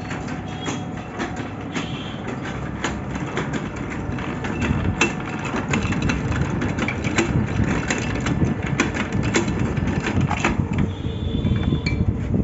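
Workshop machinery running steadily with a low rumble and many irregular sharp clicks and rattles.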